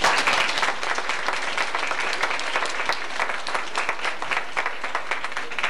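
Audience applauding, starting suddenly as the piano piece ends and continuing steadily as a dense wash of hand claps.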